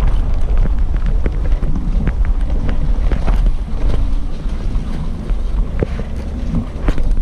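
Vehicle driving over a rough, potholed dirt road, with heavy wind buffeting on the microphone, a low rumble, and frequent short knocks and rattles from the jolting ride.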